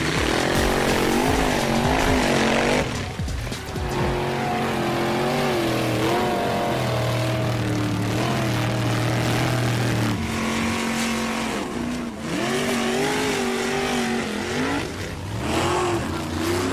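Background music: a wavering lead melody over a long held bass note.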